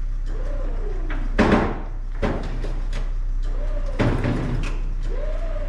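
Several knocks or clunks, the loudest about one and a half seconds in, the others near two and four seconds, over a steady low hum. A squeak rises and falls in pitch a few times.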